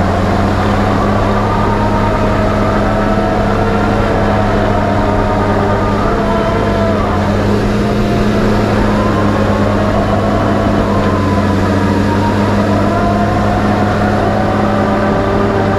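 John Deere 850J crawler dozer's diesel engine running steadily under load while the blade pushes dirt. A higher whine above the engine note drifts slowly up and down in pitch.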